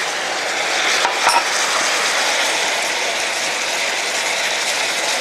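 Beef chunks, carrots and peppers sizzling in a frying pan, stirred with a wooden spoon, with a few knocks of the spoon against the pan about a second in.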